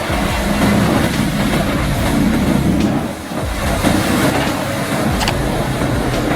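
Heavy wood-grinding machine running, its drum crushing and shredding wood with a continuous rough rumble, easing briefly about three seconds in, and with a couple of sharp cracks near the end.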